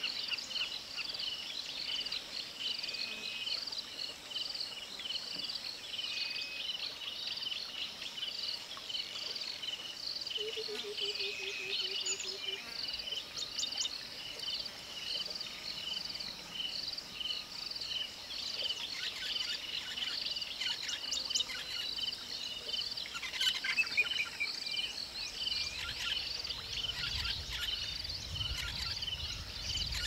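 Wetland ambience: a steady, evenly pulsing high-pitched chorus of calling animals, with scattered bird calls over it, busier about two-thirds of the way through. A short falling run of low notes comes about a third of the way in, and a low rumble rises near the end.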